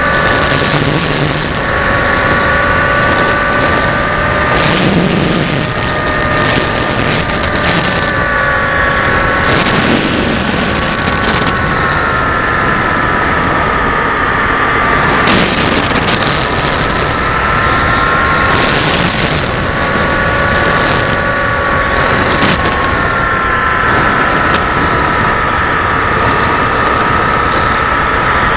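Electric motor and propeller of an RC model aircraft whining steadily, heard from close by as on an onboard camera. The pitch drifts slowly up and down with the throttle, with wind rush over the microphone.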